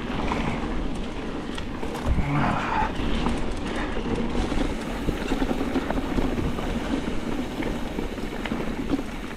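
Mountain bike being ridden: a steady rumble of wind on the microphone and tyre noise, with scattered light clicks and rattles.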